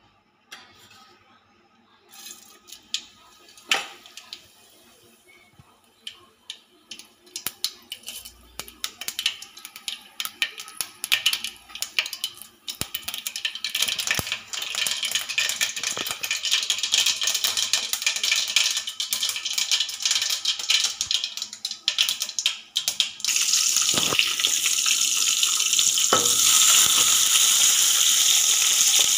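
Oil in an aluminium pan crackling and popping as it heats, the pops growing denser into a sizzle. About two-thirds of the way through it jumps to a loud, steady sizzle as sliced flat beans fry in the hot oil.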